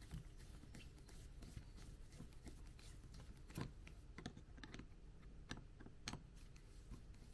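Faint, irregular light clicks and ticks of small metal fly-reel parts being handled and screwed back together, a couple of them a little louder about three and a half and six seconds in.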